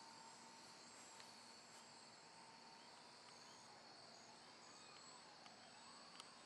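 Faint whine of the Hobbico Electristar's electric motor and propeller, its pitch wandering and bending up and down more strongly in the second half as the model plane flies around, over a steady high chirring of insects.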